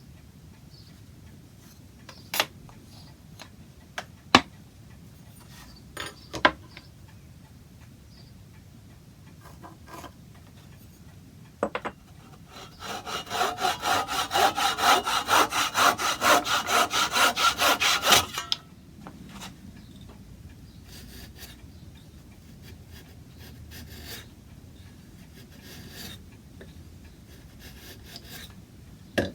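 Hand saw cutting a small piece of wood in quick, even strokes, about four a second for some five seconds in the middle, with a few sharp knocks of wood on the bench before it.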